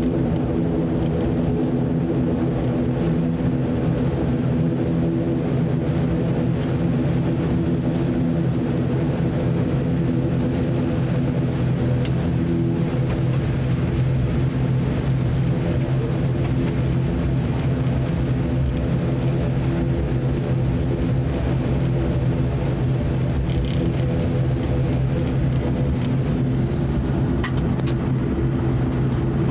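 ATR 72 twin-turboprop airliner taxiing, heard from inside the cabin: a steady drone from the engines and propellers, a hum of several steady low tones over a rumble.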